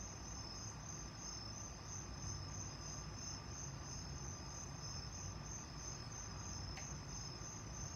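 Crickets chirping, a steady high pulsing trill, over a faint low background rumble.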